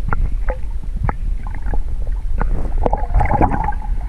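Lake water heard from a submerged camera: a steady low rumble with muffled gurgling and scattered knocks, and a denser bubbly swirl about three seconds in.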